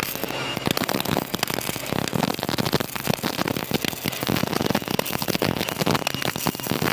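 MIG welding arc crackling and spattering continuously while running a root pass on a vertical (3G) groove joint.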